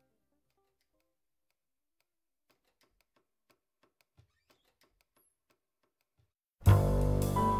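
Near silence with a few faint ticks, then about six and a half seconds in, music starts abruptly and loud: piano and drum kit over a heavy bass.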